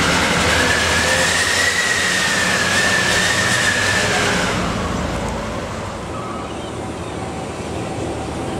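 Truck traffic heard from close behind a cargo truck: a loud rumble and rush with a high, wavering squeal over it. About four and a half seconds in, this drops to a quieter, steadier hum of truck engines.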